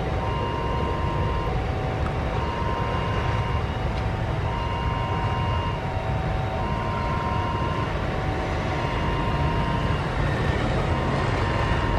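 Steady low rumble of engines: a twin-jet airliner idling on the runway and motorcycles idling nearby, growing a little louder near the end as a truck passes. Over it, a faint two-note electronic tone alternates, each note lasting about a second.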